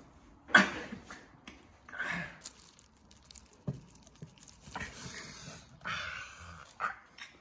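Kitchen knife slicing a kimbap roll on a wooden cutting board: the blade saws through the seaweed wrap and knocks on the board several times, the strongest knock about half a second in.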